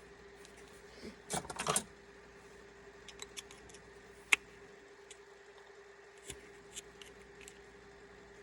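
Small clicks and rattles of the KWA Masada's freshly removed mechanism block and rifle parts being handled, with a brief rattle about a second and a half in and a single sharp click about four seconds in. A faint steady hum sits underneath.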